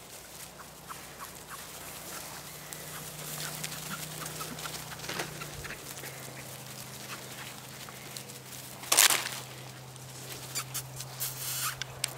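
Pointer puppies playing in grass: scattered light ticks and rustling over a low steady hum, with one short, much louder sound about nine seconds in.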